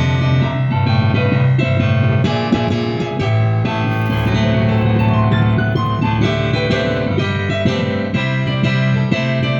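Instrumental music played on a keyboard instrument: a busy melody of many notes over held bass notes that change every second or so.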